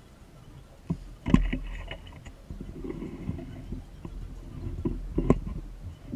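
A few sharp knocks, loudest about a second in and again near the end, with low, uneven rumbling between them.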